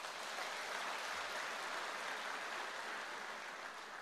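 Audience applauding steadily, the clapping dying down near the end.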